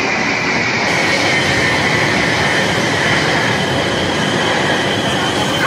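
Jet engines of a Y-20 four-engine transport aircraft flying past overhead: a steady loud rush with a high whine that slowly falls in pitch.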